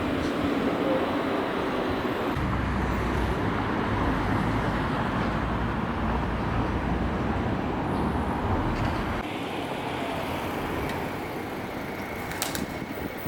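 Steady road traffic noise, with a low rumble that drops away about nine seconds in.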